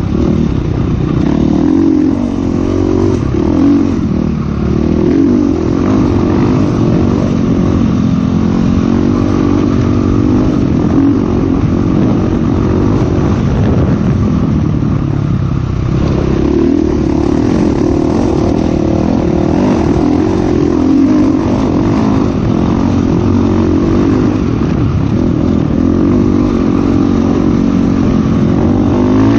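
Dirt bike engine running hard under load on a sandy trail, its pitch rising and falling continuously as the throttle is worked.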